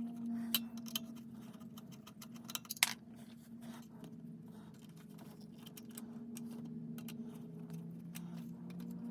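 Scattered small metallic clicks and taps of a screwdriver and terminal screws being worked while wiring a well pump pressure switch, the sharpest just under three seconds in, over a steady low hum.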